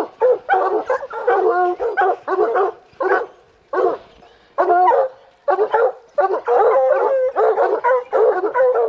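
Several hunting hounds baying treed at the base of a tree: a steady run of loud, repeated barks, about two a second, with a short break about four seconds in. After that, several dogs bark over one another. This bark tells the hunters the quarry, a mountain lion, is up the tree.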